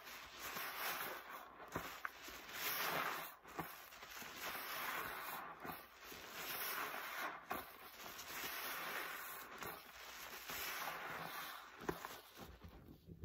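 A foam-laden yellow sponge squeezed over and over by rubber-gloved hands in a basin of thick suds: wet squishing with a fizzy crackle of foam, one squeeze every second or two.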